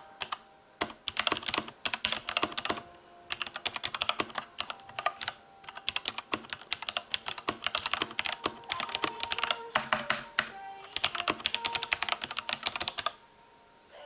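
Fast typing on an Ajazz K620T mechanical keyboard with pink switches: dense runs of key clicks in bursts with brief pauses. The typing stops about a second before the end.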